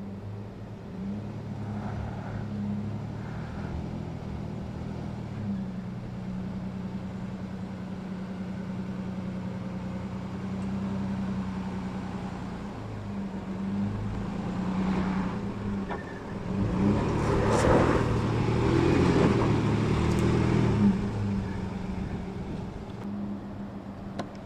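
Nissan Frontier PRO-4X pickup's V6 engine running steadily at low revs, then revving harder for several seconds past the middle with a louder rushing noise, before easing back.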